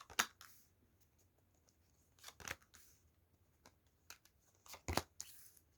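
Tarot cards being handled on a table: a few sharp taps and short rustles as the deck is shuffled and cards are slid and set down.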